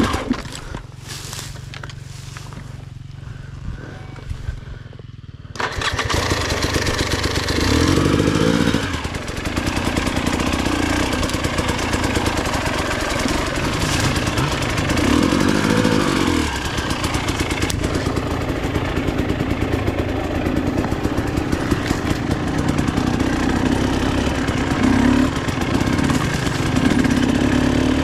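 Enduro dirt bike engine: a low, quiet hum for the first five seconds or so, then a sudden jump to full running about five and a half seconds in, revving up and down repeatedly as the bike is ridden through rough forest ground.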